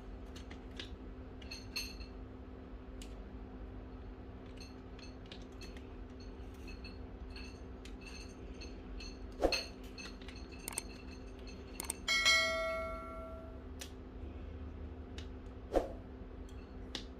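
Small clicks and light metallic ticks of plastic and metal parts as a laser printer's fuser unit is reassembled and fitted by hand, with two louder knocks. About 12 s in, a bell-like ding rings out and fades over about a second and a half: the chime of a subscribe-button overlay.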